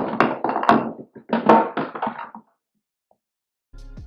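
Kraft-paper pouch crinkling and rustling as it is handled and opened, a dense run of crackles that cuts off abruptly about two and a half seconds in. A low steady hum starts near the end.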